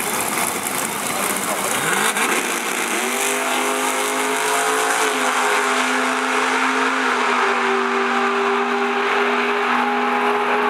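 Procharger-supercharged Fox-body Ford Mustang drag car and its opponent launching from the starting line at full throttle: the engine note climbs sharply about two seconds in. The cars then run hard down the strip with a steady, loud engine tone.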